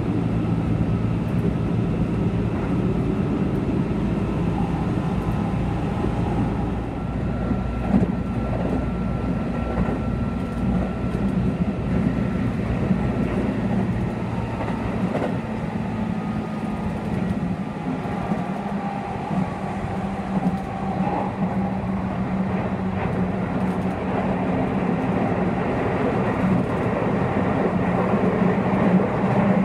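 Running noise heard inside a moving Keihan electric train: a steady rumble of wheels on rail under a low, even hum. Faint whining tones come and go over it.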